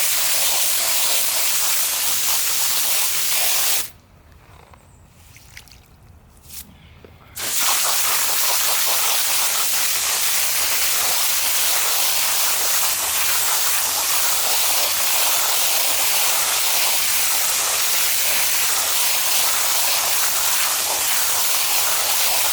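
A hose sprays water in a steady hiss onto a washable synthetic furnace filter, soaking it. The spray cuts off about four seconds in and starts again some three seconds later.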